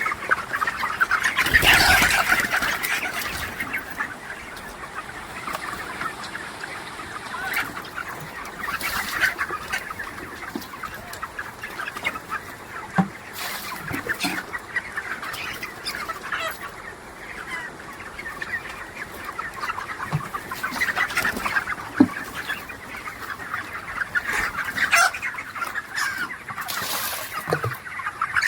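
A flock of chickens clucking and calling together, a steady overlapping chatter of many birds, with a few short bursts of noise over it, the loudest about two seconds in.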